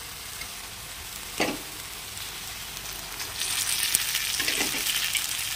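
Onion-and-spice masala sizzling in a kadhai, with a steel ladle scraping the pan once about a second and a half in. A little past three seconds the sizzle grows louder and hissier as the cooked aloo-baingan mash goes into the hot oil, with a couple more ladle scrapes.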